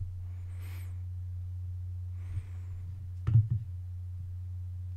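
Steady low electrical hum from the recording setup under a pause in the narration, with two faint soft hisses and one short click a little over three seconds in.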